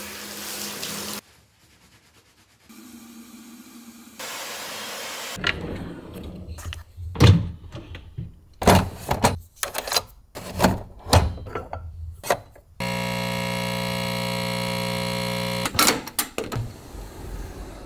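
A run of sharp clicks and knocks of small objects being handled, then a steady electric hum for about three seconds that starts and stops abruptly, then more knocks.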